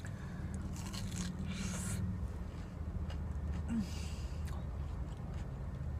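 Soft rustling and eating noises as a breaded Mac n Cheetos bite is dipped in ranch and chewed, with the loudest rustles about one to two seconds in and again near four seconds. A steady low hum runs underneath.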